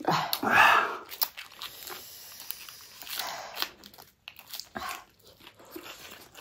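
Close-miked eating sounds: a lettuce wrap being bitten and chewed, with crunching and wet clicking mouth noises. A loud breathy rush of air comes just under a second in.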